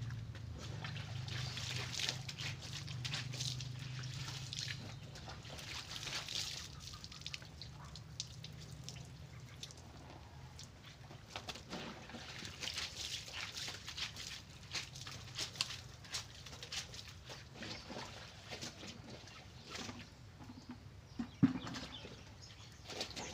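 Water splashing and dripping in a plastic basin as clothes are washed by hand, in many short irregular splashes. A low hum fades out in the first few seconds.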